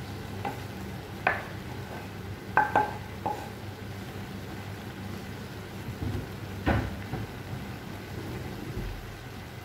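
A spatula knocking against a cooking pan and the raw pumpkin cubes in it: several short, sharp clacks in the first few seconds and one more past the middle, over a steady low hum.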